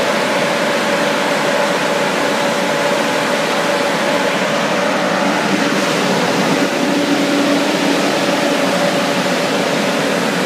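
Air-o-fan GBR36 vineyard tower sprayer's fan running at low speed, blowing spray into the vines: a steady rush of air with a steady tone running through it, over the pulling tractor's engine.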